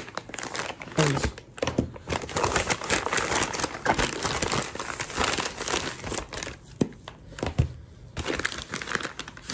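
Brown paper packaging crinkling and rustling as it is handled and pulled apart while a package is unpacked, with irregular sharp crackles throughout.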